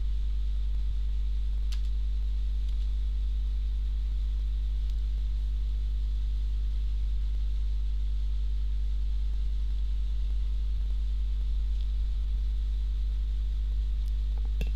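Steady low electrical hum, with fainter steady overtones above it, and a faint click about two seconds in and another near the end.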